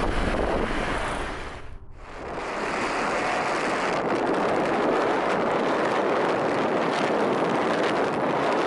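Steady wind rushing over the microphone on a moving motorcycle, with road noise and no clear engine note. It comes in after the sound fades almost away about two seconds in.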